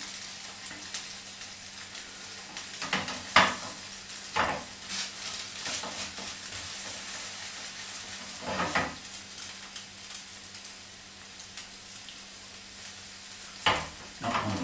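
Pancake frying in a non-stick frying pan over a portable gas stove: a steady sizzle, with a spatula scraping and tapping against the pan several times.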